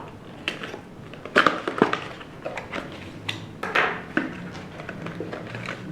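AMD Ryzen 5 5600G processor's cardboard retail box being handled and opened by hand: scattered rustles, scrapes and small clicks of packaging at irregular moments.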